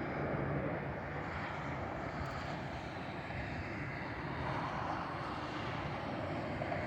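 Jet noise from an Airbus A330-900neo's Rolls-Royce Trent 7000 turbofans: a steady rushing noise with no distinct tones.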